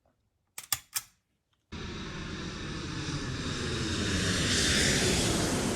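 A few sharp clicks, then a jet airliner's engine noise comes in abruptly as a loud, even rush that swells over several seconds and starts to fade near the end.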